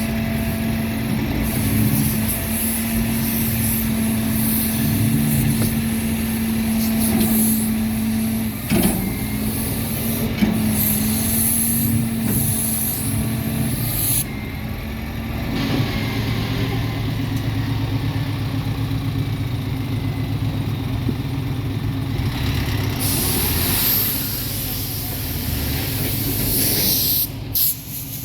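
Ford Mustang's exhaust running loud and steady with a thunderous note, the uploader's take on the car being a classic; spells of loud hissing come and go over it.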